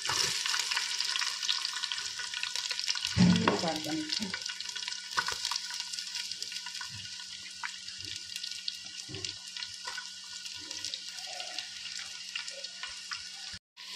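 Sliced onions sizzling in hot coconut oil in a clay pot: a dense, crackling hiss with many small pops. It is loudest just as the onions go in and settles to a steadier sizzle.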